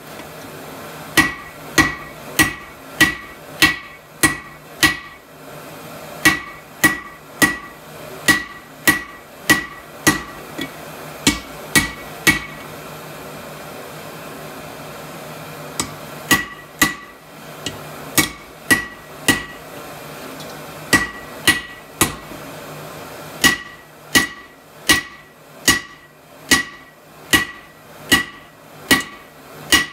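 Hand hammer striking hot steel on a railroad-track anvil, a blow about every 0.6 s, each with a bright metallic ring. The blows pause for a few seconds twice, leaving a steady low hum underneath.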